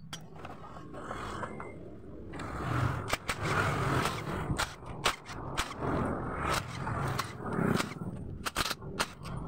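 Sharp, irregular metallic clicks and knocks of tools working on a Honda Vario 125's CVT case while it is being opened. They come thick and fast from about two and a half seconds in.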